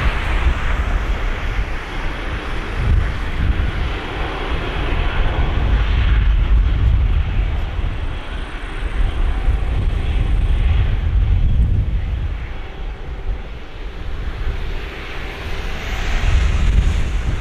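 Boeing 747-400's four turbofan engines at takeoff thrust as the jet lifts off and climbs away: a deep, crackling rumble that swells and eases in slow waves.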